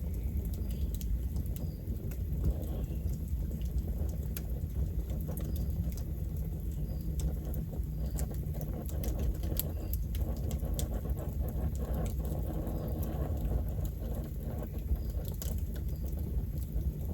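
Campfire burning: a steady low rumble of the flames with scattered sharp crackles and pops from the burning wood.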